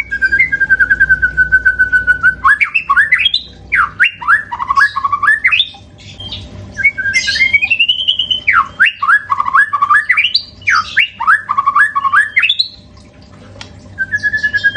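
White-rumped shama (murai batu) singing loudly. Each bout opens with a rapid stuttering run of notes on one pitch, followed by a string of swooping, down-slurred whistles. There are brief pauses about 6 s in and near the end, and the rapid run starts again in the closing seconds.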